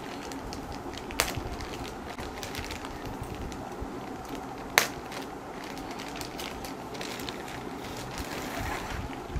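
Clear plastic packaging bag crinkling and rustling as hands pull and smooth it to open it, with a few sharper crackles, the loudest about five seconds in.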